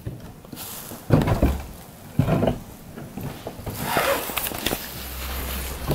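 Two short knocks or creaks of old wood, about a second apart, then a rustle and a steady low rumble near the end.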